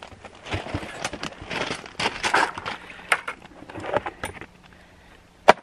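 Irregular crunching steps on gravel and the rattle of a plastic storage tote's lid being lifted, with one sharp loud click near the end.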